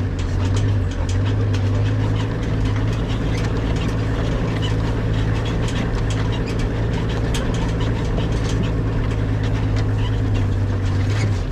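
Vehicle engine running at a steady pitch while driving, with scattered light clicks and rattles over it.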